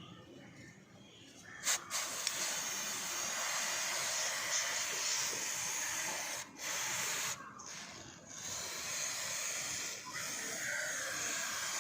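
Aerosol can of Motul C1 chain cleaner spraying onto a motorcycle chain, in long steady bursts with two short breaks in the middle.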